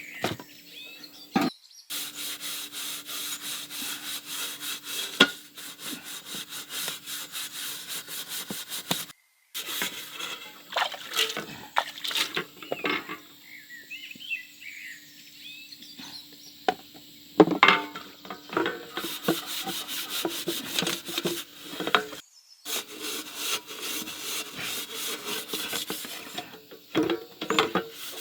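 Fast, regular scraping or rubbing strokes, like sawing or sanding, that stop abruptly several times and start again.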